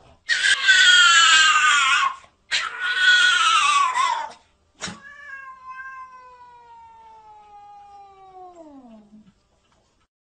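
A cat caterwauling: two long, loud yowls that fall in pitch. After a click comes a long, quieter call that glides steadily downward and stops about nine seconds in.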